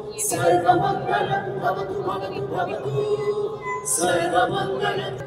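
Many voices singing together in a chant, holding long steady notes, with a new phrase starting about four seconds in.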